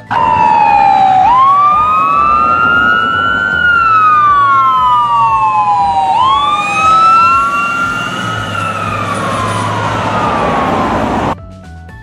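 Ambulance siren wailing over road noise, two rising-and-falling wail tones slightly out of step, going through about two full cycles. It cuts off abruptly near the end.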